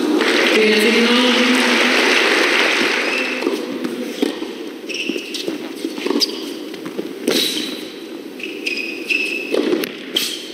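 A tennis ball bouncing and being struck on an indoor hard court, with short rubber-sole squeaks on the court surface late on. A burst of crowd applause fills the first few seconds.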